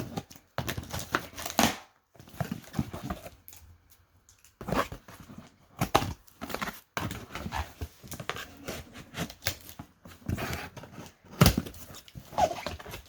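Cardboard shipping box being opened with scissors: tape cutting and tearing, with packaging rustling, in irregular short rips and clicks.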